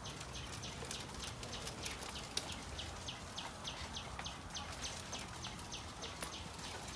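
Caged quail chirping: a fast, steady run of short, high, downward-sweeping peeps, several a second, with one sharp click about two and a half seconds in.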